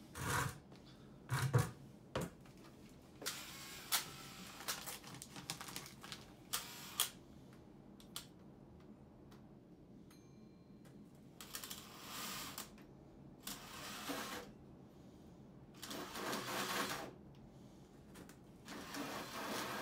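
A cordless drill-driver runs in several short bursts of about a second each, driving screws into wood framing to fasten a 2-inch PVC vent pipe. Between the bursts there are a few clicks and knocks from handling.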